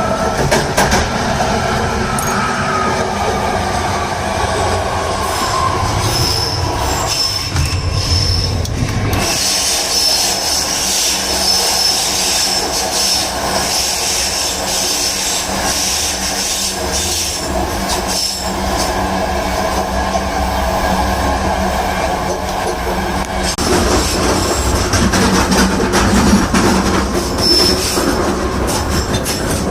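BART train brake noise: a falling whine in the first few seconds, then a steady high-pitched brake squeal through the middle stretch, over the constant rumble and clatter of steel wheels on the rails.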